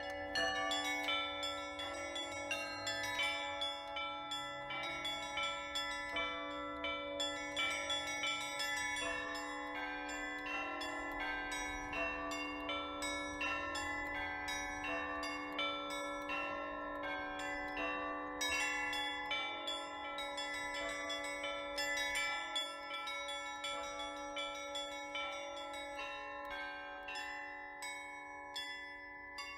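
Russian Orthodox church bells rung by a bell-ringer in a full peal (trezvon): several bells struck in quick succession over a steady ringing tone from a deeper bell. The ringing fades down near the end.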